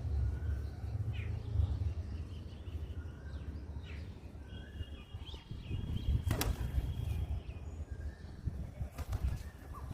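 Outdoor ambience of birds calling, with short chirps and whistled notes, one note held for about two seconds midway. Wind rumbles on the microphone underneath, and a sharp click comes about six seconds in.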